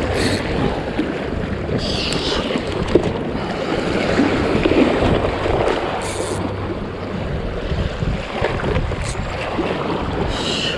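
Shallow waves washing and splashing at the shoreline, with wind buffeting the microphone. A few short high-pitched bursts come through, about 2 s in, about 6 s in and near the end.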